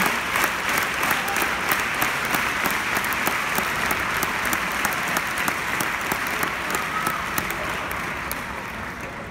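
Large arena crowd applauding, many hands clapping at once, fading down over the last couple of seconds.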